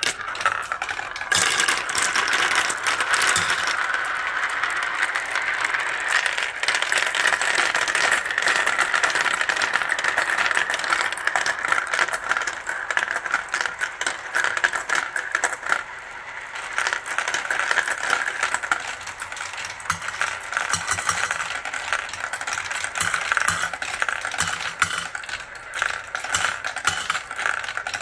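Marbles rolling and clattering through a plastic marble run, with many of them circling in the plastic funnels. There is a steady rolling whir under a constant patter of clicks as the marbles knock together and against the track.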